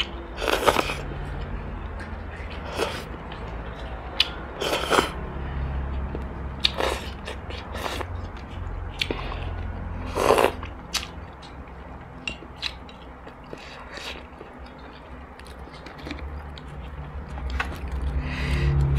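Close-miked eating: chewing and slurping of instant noodles and dragon fruit, heard as a string of short, separate mouth sounds, the loudest about half a second in and about ten seconds in, over a steady low hum.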